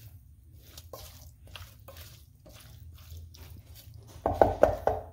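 Silicone spatula stirring wet marinated squid in an aluminium pressure cooker: soft repeated squelches and scrapes, then a louder cluster of knocks and scraping against the pot about four seconds in.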